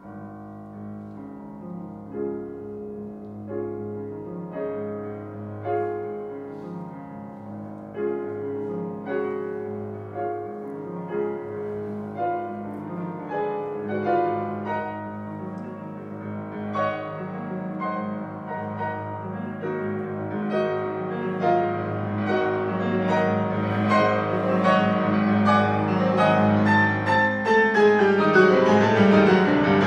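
Solo classical piano played on a concert grand, starting quietly and building steadily louder and denser to a loud, full climax near the end.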